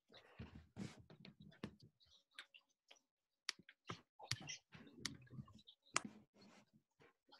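Faint, irregular clicking and tapping of a computer keyboard and mouse, with a few duller knocks in between.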